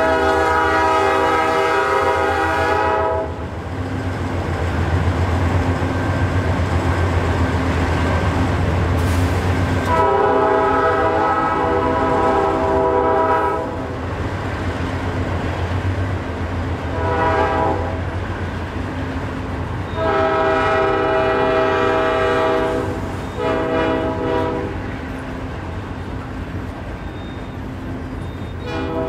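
Diesel freight locomotive's multi-chime air horn sounding a series of blasts: a long one, another long one, a short one, a long one and a final short one. This is close to the long-long-short-long grade-crossing signal. A steady low diesel engine rumble continues underneath as the coal train crosses the truss bridge.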